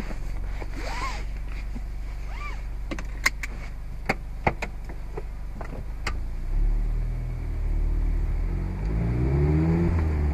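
Mazda MX-5 four-cylinder petrol engine heard from the open cockpit, running low and steady with several sharp clicks in the middle. From about six seconds in it pulls harder and rises in pitch under acceleration.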